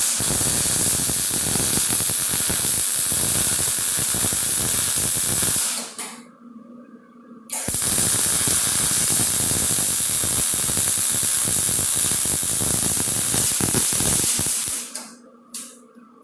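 Electric welding arc crackling and hissing in two runs, welding a filler spacer into a door hinge, with a pause of about two seconds between the beads.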